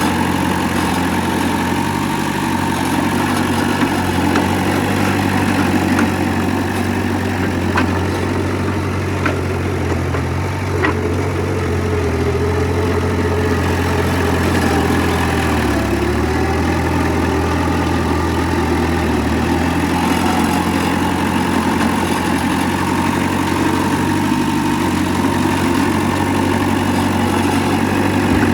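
Diesel engine of heavy earthmoving machinery running steadily at a low, even pace. A few faint clicks come through about eight to eleven seconds in, and a faint whine rises and falls between about eleven and sixteen seconds in.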